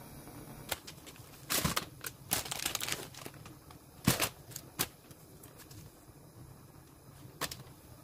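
Plastic instant-noodle wrapper crinkling and crackling as it is torn open and handled, with a run of sharp crackles between about one and a half and three seconds in and a few single ones later, over a steady low hum.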